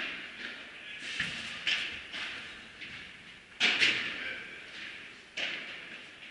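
Padel rally: a string of sharp pops of rackets striking the ball and of the ball bouncing, a second or two apart, each ringing on in a large echoing hall. The loudest pair of hits comes about midway.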